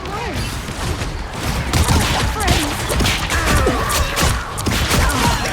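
Video game team-fight sound effects: a dense run of shots, hits and crashes, with short bursts of in-game character voices and effects over the game's music.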